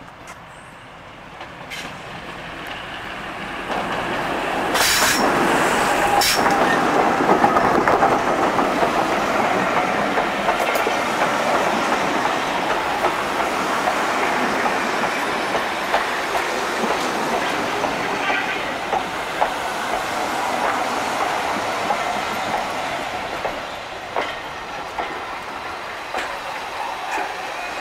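A diesel-hauled passenger train passing close by: the rumble builds over the first few seconds, then the coaches roll past with their wheels clicking over rail joints and some light wheel squeal.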